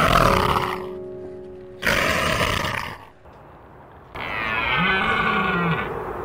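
Leopard giving two harsh, rough calls, then a drawn-out deer call with a slightly falling pitch, over background music.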